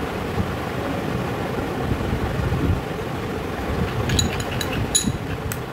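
A metal spoon clinking against a glass bowl while stirring honey into aloe vera gel: a run of sharp, ringing clinks starting about four seconds in. Under it runs a steady low background rumble.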